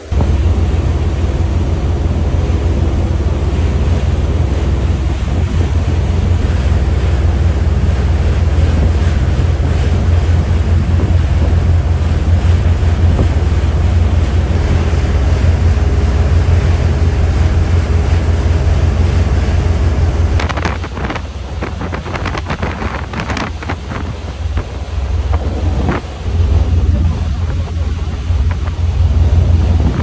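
Heavy wind buffeting the microphone on a moving boat, over the rushing of the churned-up wake water. It is quieter for several seconds past the middle, with a few short splashes or knocks.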